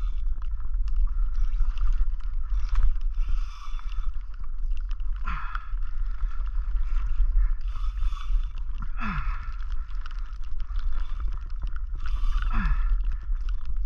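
Water slapping and sloshing against a plastic kayak hull every few seconds, with wind rumbling on the microphone and a spinning reel being cranked as a hooked fish is fought.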